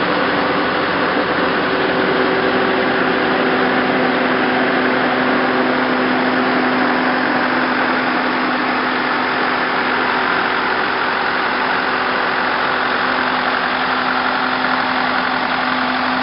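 Tractor-drawn TORNADO air-blast orchard sprayer running: a steady rush of air and spray from its fan, with the tractor's engine underneath as a few steady tones.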